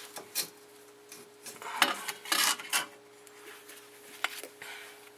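Metal brake pad clip being worked into a rear brake caliper bracket by hand: scattered light clinks and scrapes of metal on metal, with a busier bout of scraping in the middle.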